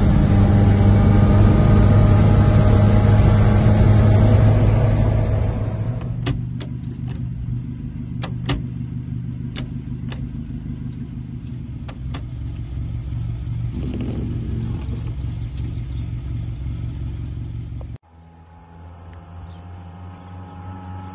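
A 1946 Morris 8 Series E's small four-cylinder side-valve engine running, heard from inside the cabin while the car is driven, its pitch rising slightly as it pulls. After about six seconds the engine is quieter and steady, with a dozen scattered light clicks. Near the end the sound drops sharply to the quieter running of the car heard from the roadside.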